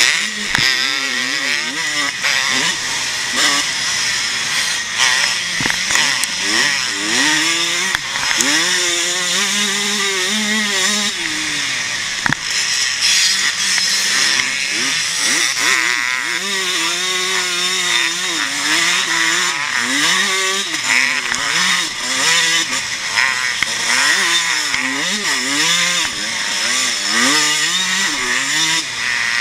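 Pre-1990 motocross motorcycle engine heard from a camera mounted on the bike, revving up and dropping back again and again as the rider accelerates, shifts and brakes around the dirt track, over a constant rushing hiss.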